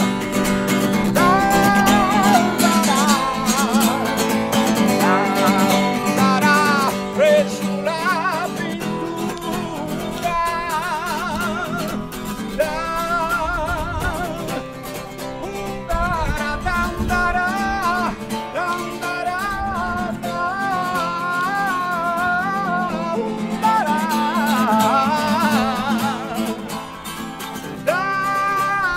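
Music: an acoustic guitar accompanying a voice that sings a melody with heavy vibrato.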